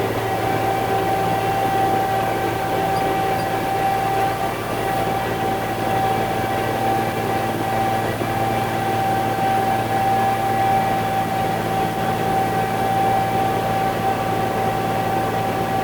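Concrete mixer truck running steadily, a constant engine drone with a steady high whine over it.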